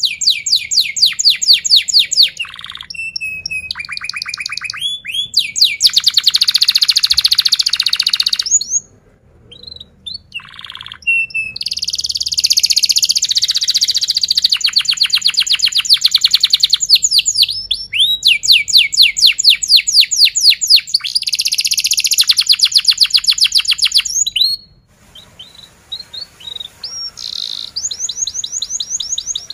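Domestic canary singing: long loud runs of fast repeated trills and chirps, with two short breaks, about nine and twenty-five seconds in.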